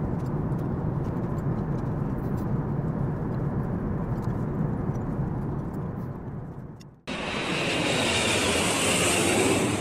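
Steady in-flight cabin noise of an Airbus A380, the rush of airflow and engines, with a few faint light ticks. About seven seconds in it fades and breaks off, and a brighter, hissier rush takes over.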